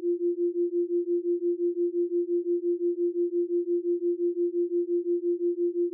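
Isochronic tone: a single pure tone pulsing on and off evenly, about six pulses a second.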